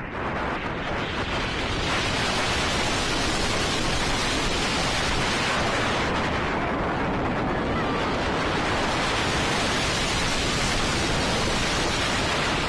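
Rushing wind blasting the microphone of a camera riding a roller coaster at speed, a steady roar that eases slightly about six to eight seconds in as the train slows over a hill.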